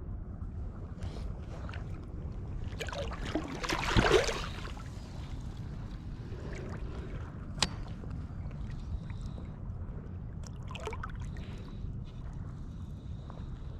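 Water sloshing and lapping around a wading angler, over a steady low rumble of wind on the microphone. A louder rushing splash comes about four seconds in, and a single sharp click just before eight seconds.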